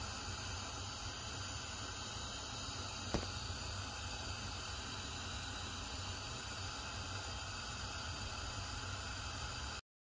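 Steady hiss with a low rumble from a gas stove burner heating a flat steel griddle. A single sharp click about three seconds in, and the sound cuts off suddenly near the end.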